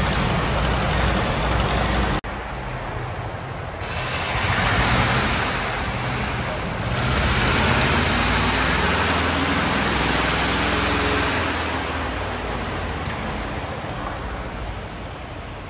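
A motor vehicle engine running under steady noise, cut off abruptly about two seconds in and picking up again at a lower level, swelling in the middle and fading toward the end.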